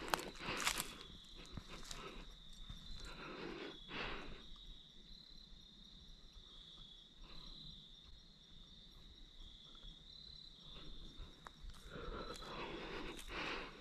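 Footsteps crunching on dry leaves and a dirt path: a few steps at the start, one about four seconds in, then steady walking again near the end. Under them a steady high insect trill runs on without a break.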